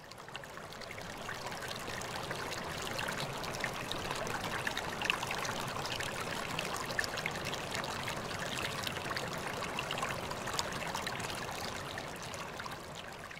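Running water of a small stream, a steady babbling trickle full of tiny splashes, fading in over the first couple of seconds and easing off near the end.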